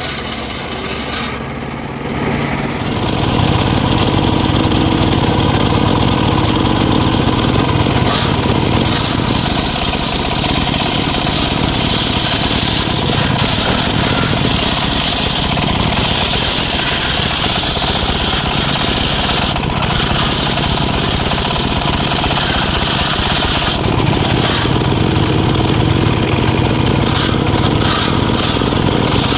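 A small engine running steadily and loudly. A high hissing noise cuts off just over a second in, and the engine grows louder about three seconds in.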